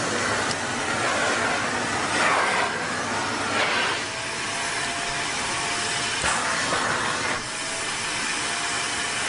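Vacuum cleaner running steadily, its noise swelling and easing a little, with a faint whine coming in about four seconds in.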